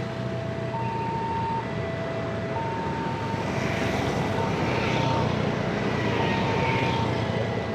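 Railway level-crossing warning alarm sounding two alternating tones, a higher then a lower one, each held for just under a second, over the steady rumble of engines and traffic.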